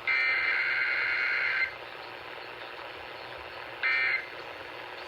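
Emergency Alert System (EAS) SAME digital data bursts coming over a radio: a harsh, buzzing warble. One burst about a second and a half long comes at the start, then two short bursts near the end. These are the coded signals that frame an EAS test broadcast.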